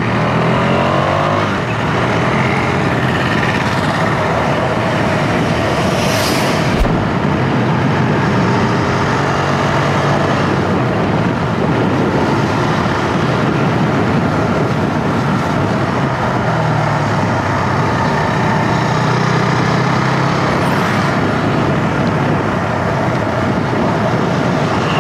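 KTM Duke motorcycle riding at road speed: wind rushing over the rider-mounted microphone over the steady drone of the single-cylinder engine. The engine note rises in the first couple of seconds as the bike accelerates.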